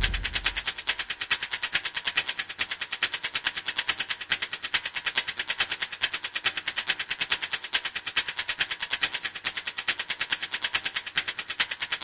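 A fast, even train of sharp electronic clicks, a title-sequence sound effect, keeping a steady rate throughout.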